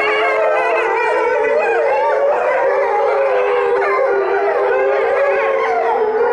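A pack of Chinese wolves howling in chorus. Several voices overlap: one long, steady low howl with higher howls sliding up and down above it.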